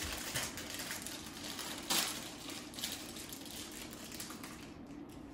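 Light clinks and rustles of a breakfast table: a spoon against a bowl and a small packet being handled, with one sharper clink about two seconds in.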